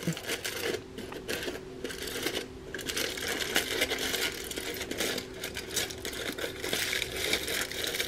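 Aluminium foil crinkling and rustling in irregular bursts as it is pressed and tucked down around a cake pan.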